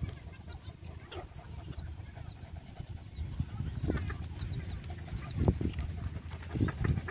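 Chickens clucking a few times, loudest about two-thirds of the way in, with high bird chirps throughout and a low rhythmic smacking from puppies suckling underneath.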